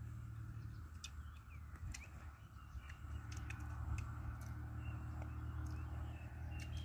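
Scattered short bird chirps over a low steady hum of outdoor background noise, with a few faint clicks.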